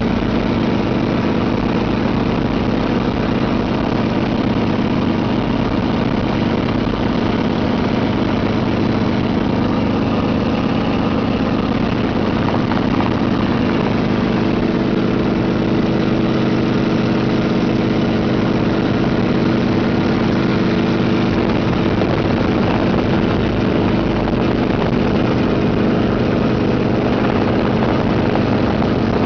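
Helicopter engine and rotor noise heard from inside the cabin in flight: loud and steady, with a constant low hum.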